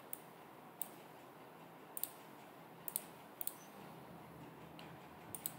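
Computer mouse buttons clicking faintly: about ten sharp clicks, several coming in quick pairs.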